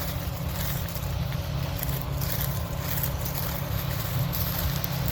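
Farm machinery diesel engine running steadily at constant speed, a low even engine sound with no changes.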